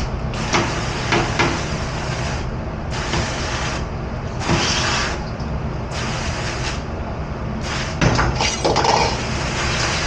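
Commercial dish-room noise: a steady machine rumble, with bursts of hissing spray switching on and off and a few sharp clatters of dishware, several of them close together near the end.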